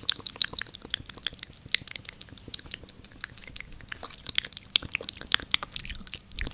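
Close-miked ASMR trigger sounds: a fast, irregular stream of crisp, wet clicks made at the microphone.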